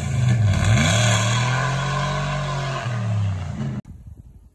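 1996 Dodge Dakota pickup's engine revving. Its pitch dips and climbs, holds steady, then falls, and the sound stops suddenly near the end.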